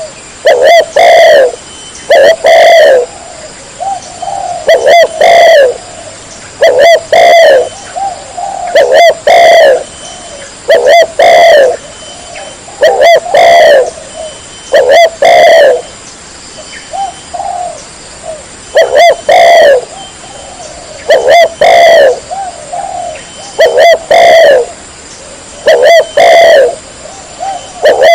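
Spotted dove cooing loudly and repeatedly: short phrases of two or three coos, one phrase about every two seconds, loud enough that the peaks hit full scale.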